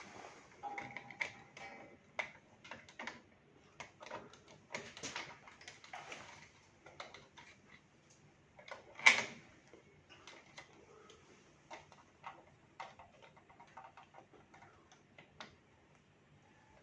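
Irregular small clicks and knocks from hands fitting a circuit card into a fire alarm panel, with one sharper, louder knock about halfway through.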